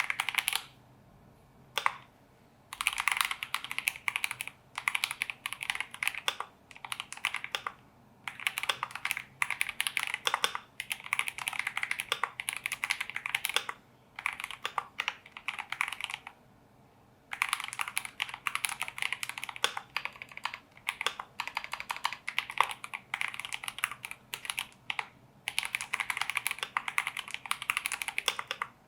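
Typing on a mechanical keyboard with Gateron G Pro Brown tactile switches: runs of rapid keystrokes broken by short pauses.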